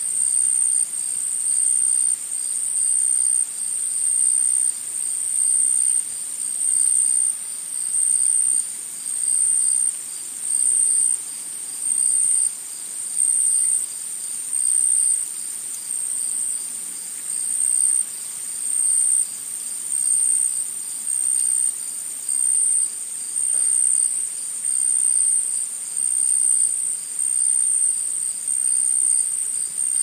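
Forest insects singing: a high-pitched, shrill trill that swells and drops in regular pulses about a second apart, over a faint background hiss.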